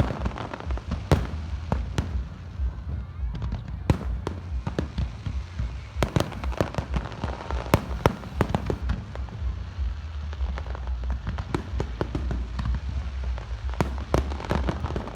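Aerial fireworks display: shells bursting in an irregular, rapid series of bangs and crackles over a constant low rumble.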